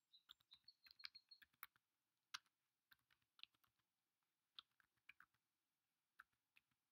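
Faint typing on a computer keyboard: irregular key clicks, several to the second, as a short terminal command is typed.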